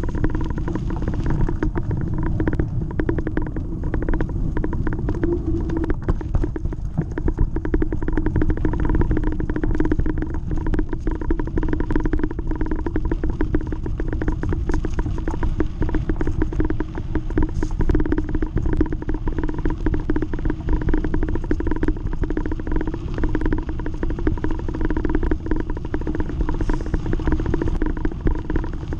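Bicycle rolling over a bumpy gravel and dirt path, heard through a handlebar-mounted action camera: a steady rumble with dense rattling and clicks from the rough surface and a constant hum.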